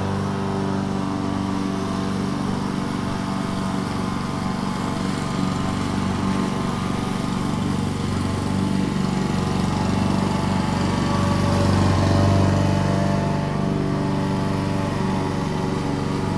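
Lawn mower engine running steadily while cutting grass, growing a little louder about two-thirds of the way through before easing back.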